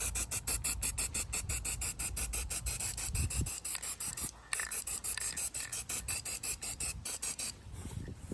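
A rattle can of spray primer being shaken: the mixing ball clacks in a fast, even rhythm of about five or six strokes a second, with a short pause about four seconds in.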